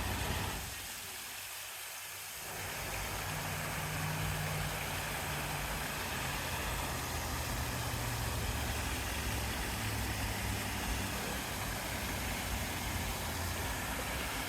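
Steady drone of highway traffic, with a low hum under an even wash of noise; it drops away briefly about a second in, then returns.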